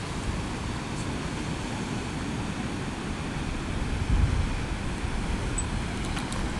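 Wind buffeting the microphone over the steady wash of surf, with a stronger gust about four seconds in.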